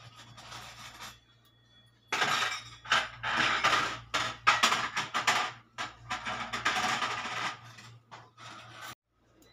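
Small metal objects clinking and rattling in a dense, irregular run of quick jingles, starting about two seconds in and stopping abruptly near the end.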